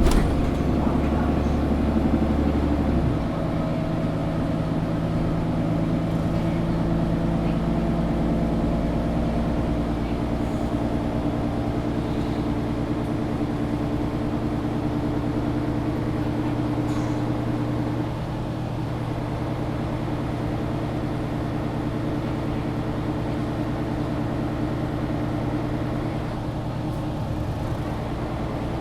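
Interior ride sound of a Mercedes-Benz O530 Citaro G articulated city bus under way: steady engine drone with road noise. The engine note drops a few seconds in and again about two-thirds of the way through.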